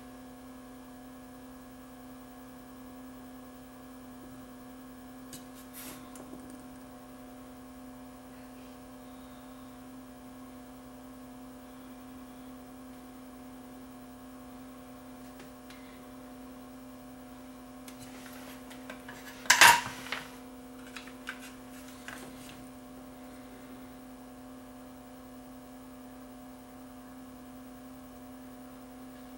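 A steady low electrical hum, with one sharp metallic clatter about two-thirds of the way through and a few faint clicks just after it.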